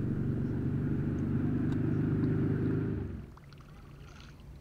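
A boat motor running with a steady low rumble, cutting off abruptly about three seconds in.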